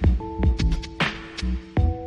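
Instrumental music with a steady beat: low thumps and sharp hits with fast ticks on top, under held chords that change about a quarter second in and again near the end.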